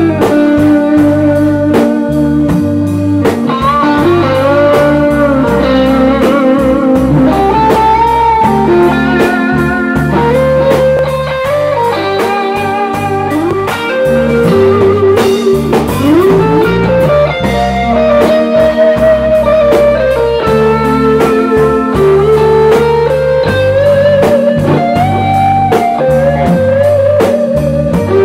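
Live rock band playing an instrumental passage: an electric lead guitar plays a melody with string bends and vibrato, with a couple of sliding runs about halfway through, over bass guitar and drum kit.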